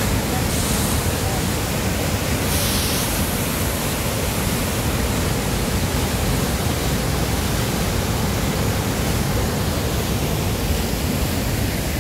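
Waterfall pouring down a narrow rock gorge, a steady rush of falling water.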